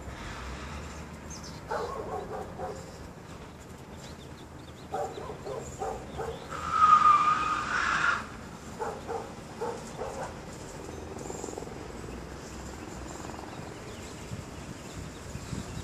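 Short animal calls in repeated bursts over a low steady traffic rumble, with one louder, longer noisy sound lasting over a second about seven seconds in.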